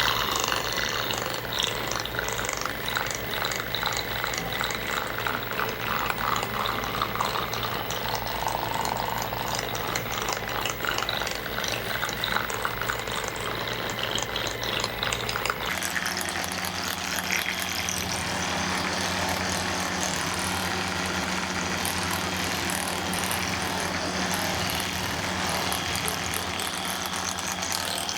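Percussive massage gun running against the body, a steady motor hum with a fast, even pulsing. Its pitch and tone shift abruptly about halfway through.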